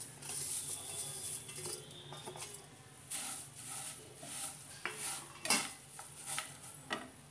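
Dry-roasted flattened rice (poha) tipped from a plate into a non-stick frying pan, then stirred with a slotted spatula. A dry rustling of the flakes, with the spatula scraping and knocking on the pan; a few sharper knocks come in the second half.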